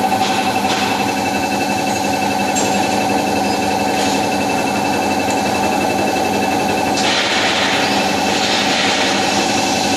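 Almond slicing machine running: a steady motor hum under a dense, rapid mechanical rattle, with a hiss joining about seven seconds in.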